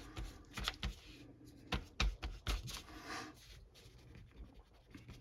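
Hand eraser scrubbing the paper cover of a 1977 comic book in short, scratchy strokes, with a few sharp knocks in the first three seconds and lighter rubbing after.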